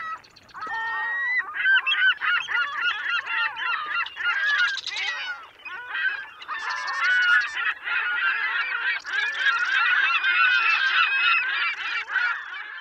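A large flock of waterfowl calling, many loud calls overlapping without a break.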